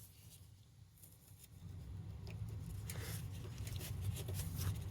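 Faint rustling and scraping as an electrical wire is pushed through a hole, with a low rumble that rises after about a second and a half.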